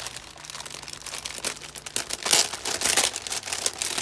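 Packaging crinkling and rustling as it is handled around a gift being unwrapped, in irregular crackles that grow loudest about two seconds in.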